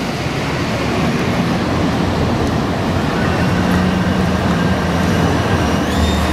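Düwag GTW-D8 articulated tram running round a curve in the track as it comes closer, with a steady rolling noise and a low hum. A faint high squeal from the wheels comes in about halfway and steps up in pitch near the end.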